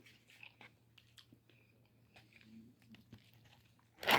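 Faint chewing and biting of fried chicken, with small scattered mouth clicks. Near the end, a sudden loud crinkling of paper packaging.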